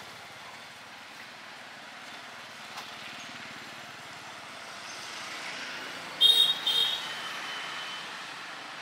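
Motorbike traffic going past on a street, a steady hum that swells as a bike approaches. A horn gives two short beeps about two-thirds of the way through.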